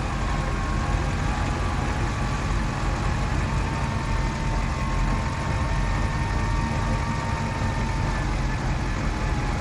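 Vehicle engine running steadily while a winch pulls in line, its faint steady whine fading out near the end.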